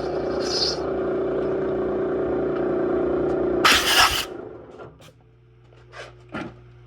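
Machine spindle turning a Crower dual valve-spring cutter in a cylinder head's spring seat, running steadily. About four seconds in comes a short, harsh scraping rush, then the machine stops and a few light knocks follow.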